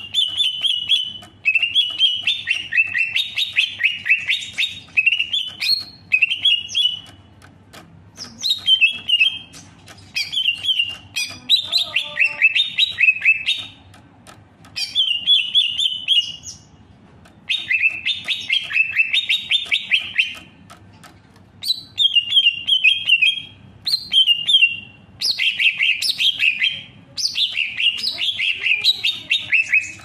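Male greater green leafbird singing: a string of short, rapid warbling phrases, each one to two seconds long, with brief pauses between them.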